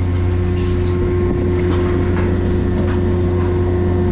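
Fishing boat's engine running with a steady low drone, over water rushing along the hull.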